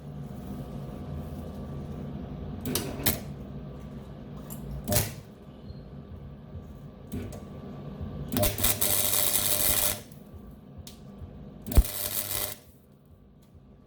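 MIG welder arc crackling in several short pulses of plug welding: brief bursts about three and five seconds in, a longer one of about a second and a half around eight seconds in, and a short one near twelve seconds. A steady low hum runs underneath and stops about a second before the end.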